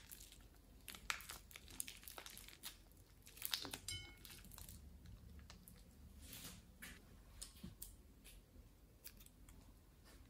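Clear plastic piping bag crinkling as it is squeezed to empty foam beads into a glass bowl, with light scattered clicks of the beads. The densest crackling comes about three and a half seconds in.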